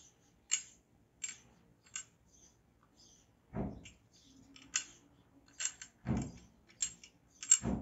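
Handling noise of a chrome kitchen mixer tap being turned over in the hands: scattered light metallic clicks and crinkles of a plastic bag, with three dull thumps, the last and loudest near the end.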